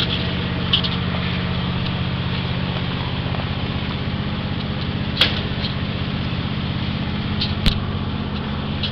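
Small riding lawn tractor engine running steadily at an even speed, with a few short clicks over it.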